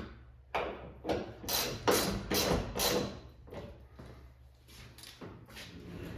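Hand ratchet wrench clicking through a run of short strokes, about two a second, working a trunk lid hinge bolt. Fainter strokes follow near the end.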